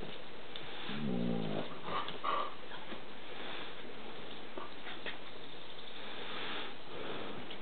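A German shepherd and a small terrier puppy play-fighting: one low, drawn-out dog vocalisation about a second in, then two short high squeaks, with faint scuffling and sniffing.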